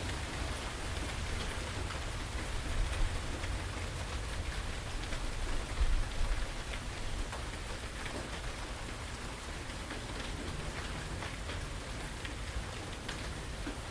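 Steady rain falling, with a continuous hiss and the sharp ticks of individual drops striking nearby surfaces over a low rumble. A brief louder swell comes about six seconds in.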